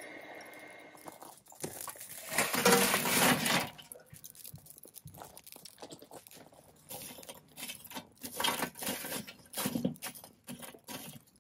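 Burning charcoal tipped from a chimney starter into a kettle grill's charcoal basket: a loud clattering rush about two seconds in, lasting about a second and a half. Then metal tongs shift the hot coals with scattered clinks and scrapes.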